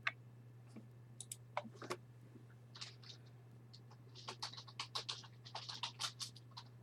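Computer keyboard typing: scattered light clicks, then a quick run of keystrokes over the last few seconds, over a steady low electrical hum.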